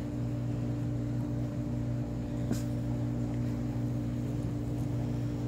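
Steady mechanical hum of a running motor, holding several fixed pitches without change, with one faint click about halfway through.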